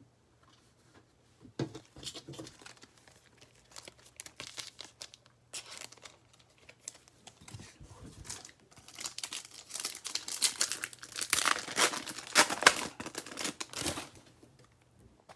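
Crinkly foil wrapper of a 2020 Mosaic NFL trading-card pack being handled and torn open: scattered crackles at first, growing denser and louder in the last few seconds, then stopping.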